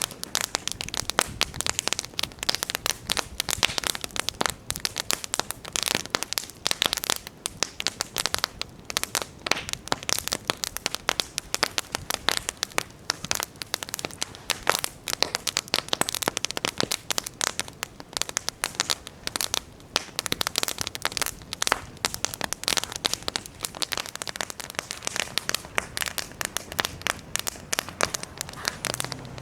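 Wood campfire burning, crackling with many rapid, irregular snaps and pops.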